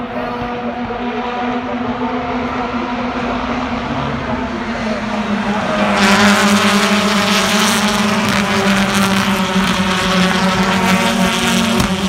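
A pack of BTCC touring cars running nose to tail through a corner, their two-litre turbocharged four-cylinder engines blending into one loud drone. It builds as the field draws near and grows suddenly louder about halfway through as the cars stream past close by.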